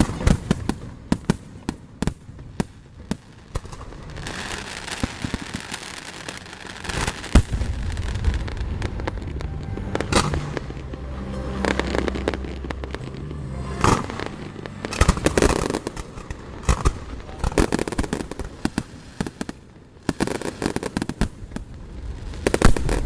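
Aerial fireworks going off: a long run of sharp bangs and crackling, thickest in the first few seconds and again near the end, sparser in the middle.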